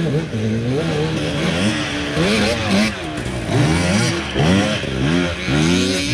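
Enduro dirt bike engines revving hard as the bikes climb a steep hill, the pitch rising and falling again and again as the riders work the throttle, with more than one engine heard at once.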